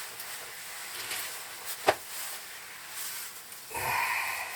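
Steady hiss of a canister propane stove burning, with a single sharp click a little under two seconds in and a brief scrape or rustle near the end.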